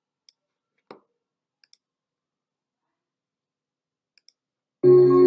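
A few faint, scattered clicks over near silence, then ambient intro music of sustained, held tones starts suddenly near the end.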